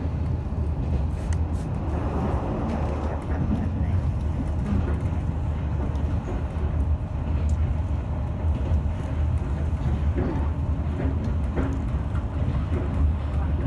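Passenger train running along the line, heard from inside the carriage: a steady low rumble.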